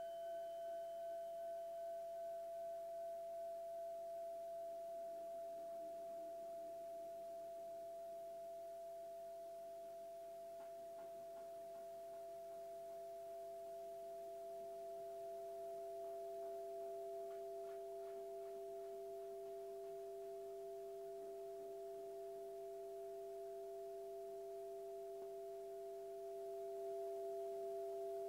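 Sustained two-note electronic drone from a looper, two steady pure tones, the lower one swelling louder near the end, with a few faint clicks in the middle.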